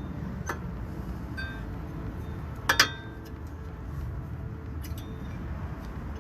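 Metal parts clinking as a brake pad is worked into a disc brake caliper bracket, with a few light clicks and one sharp, ringing double clink about three seconds in, over a steady low rumble.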